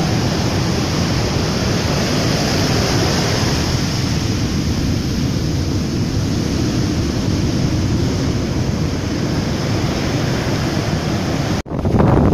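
Rough storm surf breaking and washing up a sandy beach, a steady heavy rush with wind buffeting the microphone. Near the end the sound cuts out for an instant and comes back louder, as waves break against a rock seawall.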